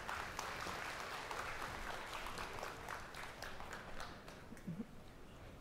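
Audience in a lecture hall applauding, the dense clapping thinning out and fading away over the last couple of seconds.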